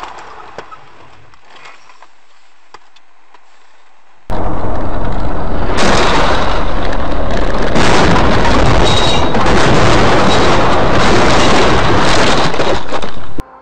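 Dashcam audio overloaded by a car crash: a very loud, distorted mix of crashing and rushing noise that starts suddenly about four seconds in and stops abruptly just before the end. Before it there is quieter road noise with a few faint clicks.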